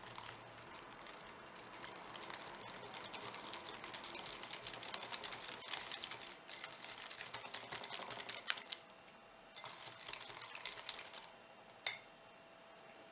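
Wire balloon whisk beating egg into a melted white chocolate batter in a glass bowl: a fast run of light clicks and scrapes of the wires against the glass, with a few short pauses, stopping near the end with one last tap.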